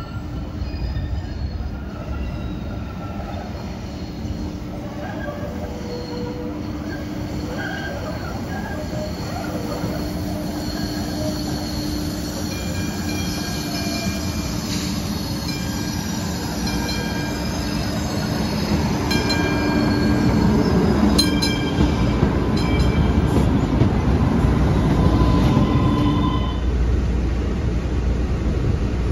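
MBTA Green Line light-rail train approaching on its track, wheels squealing in steady high tones over a rumble that grows louder as it nears. Near the end the squeal stops, giving way to the low rumble heard inside a moving Green Line car.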